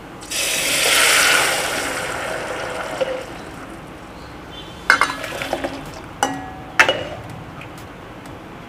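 Sambar ladled into a steel pot of hot ghee tadka with red chilli, sizzling loudly as it hits the hot fat, the sizzle fading over a few seconds. Then a few sharp clinks of the steel ladle against the pot.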